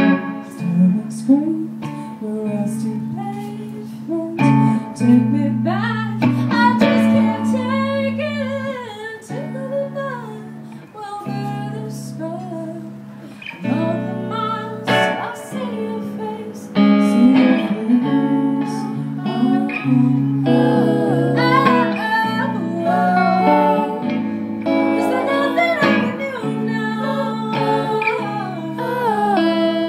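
Live rock song: a woman singing lead over electric guitar and band accompaniment. The vocal comes and goes in phrases, with a softer passage about a third of the way through before the full band picks up again.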